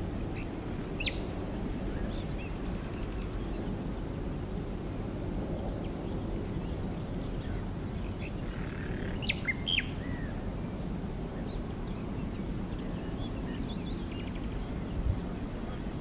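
Common nightingale giving scattered short whistled notes and chirps, with a quick cluster of sharp notes about halfway through, over a steady low background rumble.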